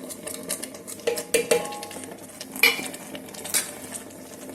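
Spoon clinking and scraping against the inside of an electric kettle as soya chunks are stirred into a thick sauce. Scattered knocks with a few short ringing clinks, the loudest about two and a half seconds in.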